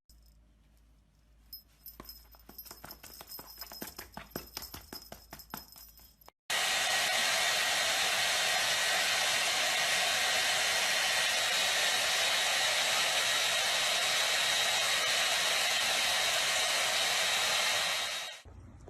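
Steady, loud rushing whir of a small electric motor, starting suddenly about six and a half seconds in and cutting off about a second before the end. Before it come faint scattered clicks.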